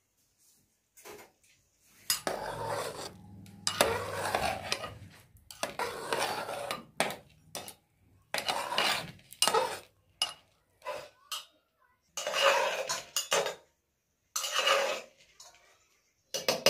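A metal ladle scraping and clinking around the inside of a metal cooking pot as rice is stirred, in a series of strokes about a second long each. Near the end comes a quick run of sharp metallic taps.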